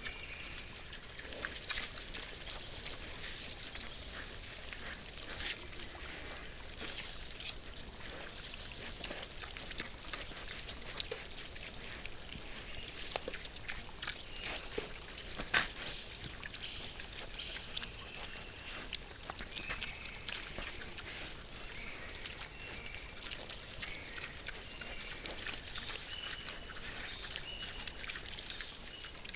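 Young wild boars feeding: scattered crunching, rustling and small clicks over a steady high hiss, with one sharper click about halfway through.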